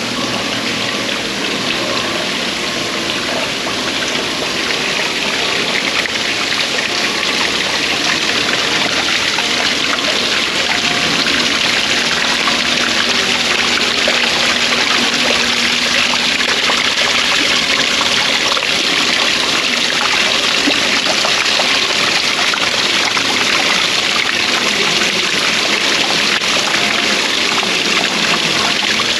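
Running water: a steady, continuous rush that grows a little louder over the first few seconds, then holds even.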